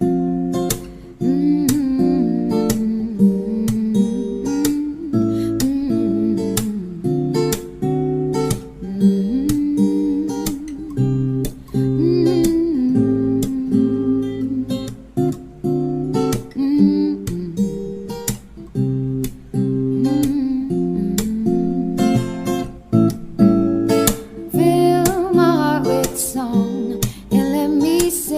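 Background music: acoustic guitar played with plucked and strummed chords, and a wavering melody line over it.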